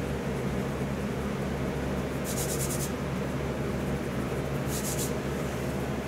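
Pencil scratching across a painted wall in two short strokes, about two seconds in and again near five seconds, marking a level line. A steady low hum runs underneath.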